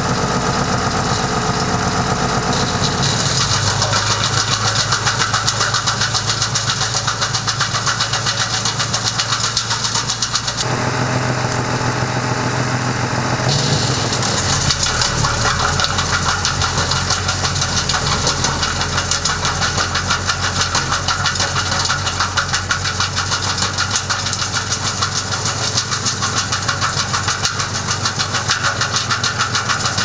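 Wood chipper running under load as branches are fed in, its engine note under a fast, continuous chopping clatter. The tone shifts a few times as the load changes, about three, ten and thirteen seconds in.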